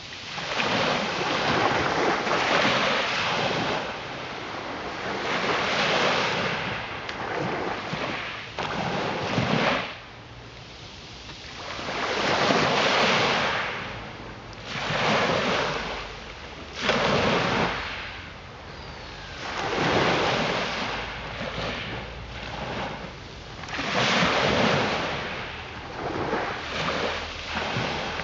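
Small sea waves breaking and washing over a pebble shingle beach, the surf swelling and fading every three to four seconds.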